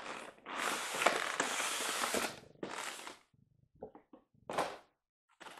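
White polystyrene foam tray being slid out of its cardboard box: a long scraping rub of foam against cardboard lasting about two seconds, a shorter scrape just after, then a few light knocks and rubs as the tray is handled and set down.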